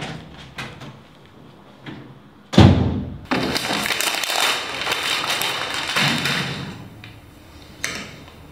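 A heavy thump, then about four seconds of loud rustling and crinkling as a paper folder is squeezed and crumpled, with a softer knock near the end.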